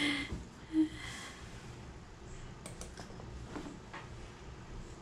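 A few faint clicks of a wired computer mouse, scattered a second or so apart, over quiet room tone, with a short voiced sound near the start.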